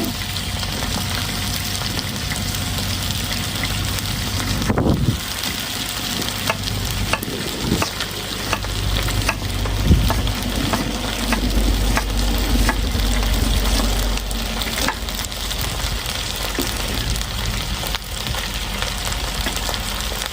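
Shredded potatoes sizzling in hot oil in a wok, stirred with a spatula that scrapes and clicks against the pan at irregular intervals.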